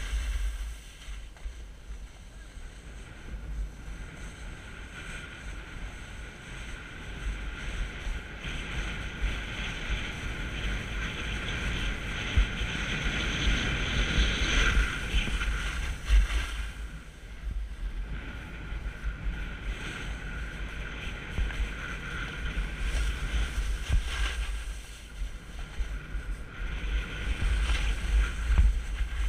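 Snowboard sliding and scraping over snow during a downhill run, a hiss that swells and fades with the turns, under steady wind buffeting on the microphone.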